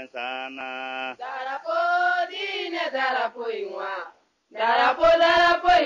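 Voices singing a religious chant in long held, gliding notes. The singing breaks off briefly about four seconds in, then comes back louder over a few low thumps.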